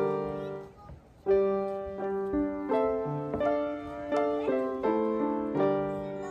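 Background music played on piano: a gentle melody of single struck notes, each fading away, with a brief pause about a second in.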